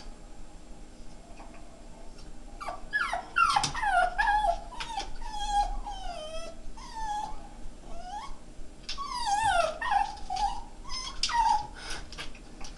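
Jack Russell terrier whining and whimpering in high, wavering cries that slide up and down in pitch, starting a couple of seconds in, in two long bouts with a short break between them.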